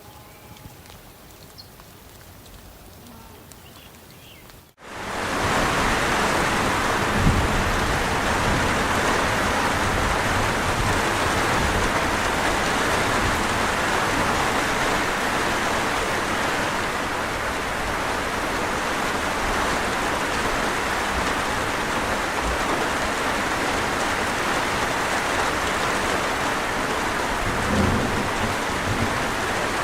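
Quiet outdoor background for about five seconds, then an abrupt cut to steady heavy rain. Low rumbles of thunder come in twice, a couple of seconds after the cut and again near the end.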